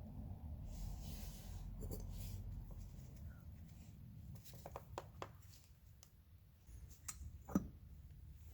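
Faint handling noises, as of tools and small parts being moved: scattered light clicks about halfway through and one sharper knock near the end, over a low steady rumble.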